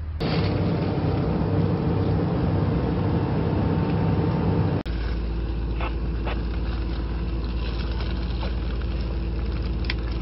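Diesel engines of heavy construction machinery running. The first is loud and steady; it breaks off about halfway through and gives way to a steady, deeper engine hum with a couple of faint clicks.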